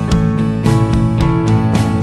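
Background music: strummed acoustic guitar in a country style.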